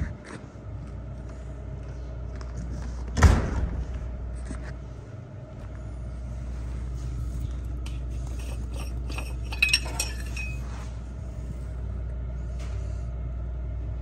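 John Deere tractor's diesel engine idling steadily. A loud thump about three seconds in and a few sharp clicks around ten seconds in.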